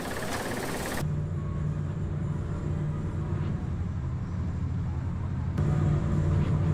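Combine harvester engine running with a steady low hum, the sound changing abruptly about a second in and again near the end as the footage cuts between shots.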